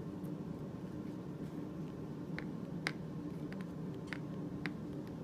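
Faint handling sounds of fingers pressing red clay around a metal hair clip on a plate: a few soft, scattered clicks and taps. A low steady hum sits underneath.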